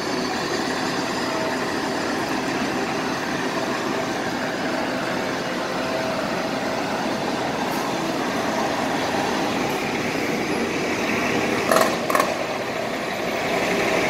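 Steady city street traffic noise: buses and cars running at an intersection. Two sharp knocks come close together about twelve seconds in.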